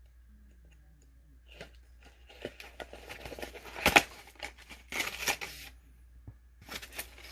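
Sealed cardboard trading-card box being opened by hand: rustling and tearing of card and paper in short bursts, with a sharp snap about four seconds in.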